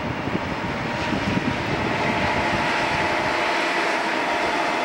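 Keisei AE-type Skyliner electric train approaching: wheels rumbling on the rails, growing louder, with a steady whine coming in about two seconds in.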